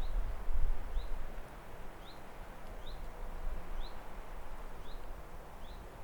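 A bird repeating a short, rising chirp about once a second over a steady background hiss of outdoor ambience, with a low rumble in the first second and a half.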